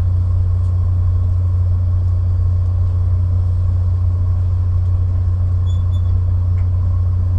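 Steady, loud low drone of a stationary passenger train idling, heard from on board, with no change in pitch or level.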